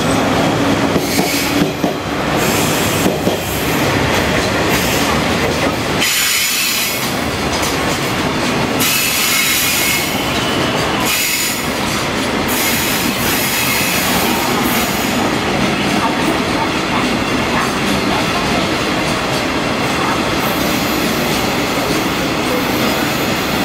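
A JR Freight container train, hauled by an EF210 electric locomotive, rolling very slowly past, with a local electric train moving on the nearer track at first. A steady rolling noise of wheels on rail, with a few brief high-pitched stretches near the middle.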